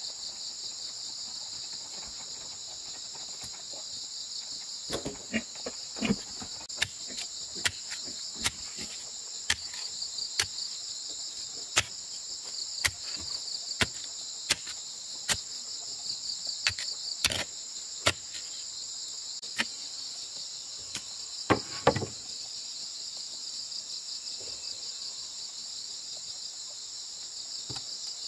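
Short-handled hoe chopping into packed earth, a sharp strike about once a second from about five seconds in until near the end, over a steady high-pitched insect chorus.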